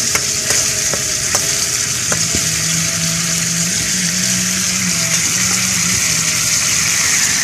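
Sardines in tomato sauce sizzling and bubbling in a wok, with a spoon stirring and clicking against the pan a few times in the first couple of seconds.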